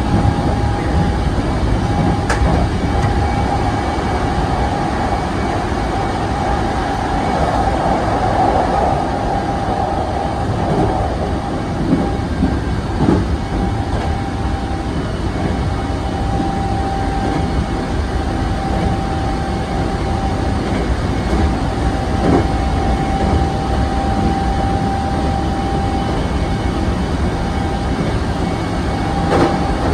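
Hankyu 7000-series electric train running at speed: a steady rumble of wheels on rail with a steady whine above it. A few knocks over rail joints come near the middle.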